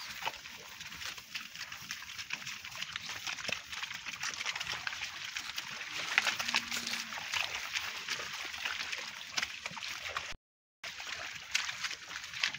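Walking through wet pasture grass: a steady crackling rustle and swish of grass and damp ground underfoot. The sound cuts out briefly about ten seconds in.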